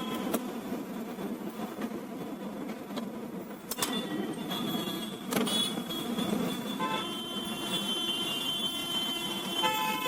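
Steady street traffic with car horns honking, the horns strongest in the second half. A few sharp clicks of printer parts being handled come near the start and about four and five seconds in.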